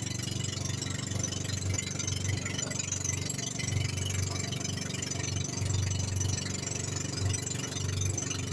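Engine of a bangka outrigger boat running steadily under way, a low even hum with a hiss of water and wind over it.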